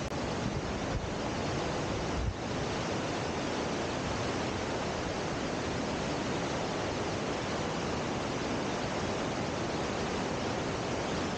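Steady rushing of a waterfall, water pouring over a dam spillway and through rapids.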